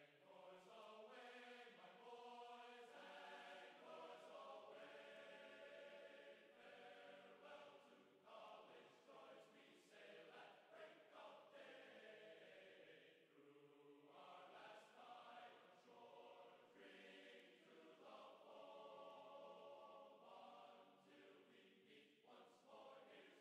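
Faint background music of choir-like, chant-style singing in long held notes.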